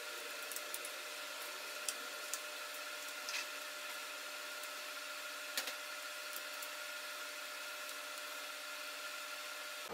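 Steady background hiss with a faint hum, broken by a few light clicks and taps from handling small laptop parts.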